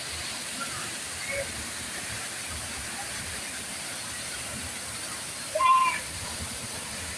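Waterfall rushing in a steady hiss. A brief high-pitched call rises above it near the end.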